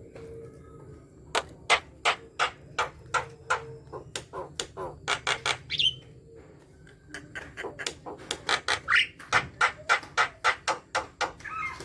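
Javan myna calling: two long runs of sharp, harsh clicking notes, about four a second, each ending in a brief higher whistled note.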